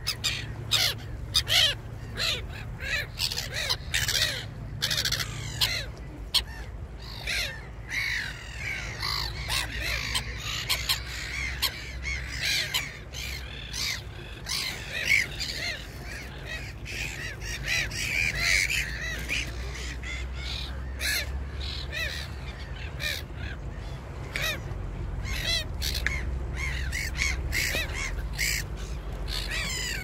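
Birds calling over small waves lapping and splashing irregularly on the shore, with a steady low rumble underneath. The calls are busiest in the middle stretch.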